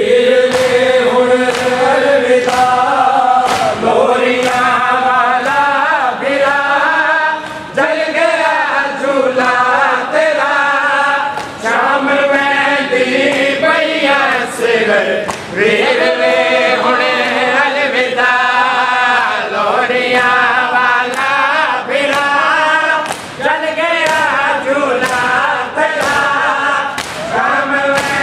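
Many men chanting a nauha lament in unison while beating their chests in matam, the chest-slaps landing as a steady beat about once a second.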